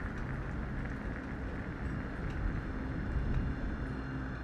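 Sci-fi shipyard ambient soundscape: a steady low industrial rumble with a few faint clicks.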